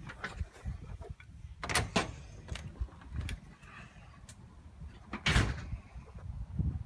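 A door being opened and shut, with two sharp clatters about two seconds in and a louder one a little after five seconds, over low rubbing and handling noise from a phone held against clothing.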